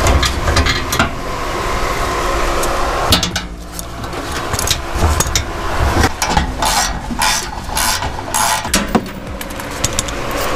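Irregular metal clanks and knocks as the metal skid plate under a second-generation Toyota Tundra is unbolted and lowered by hand, with hand tools clattering.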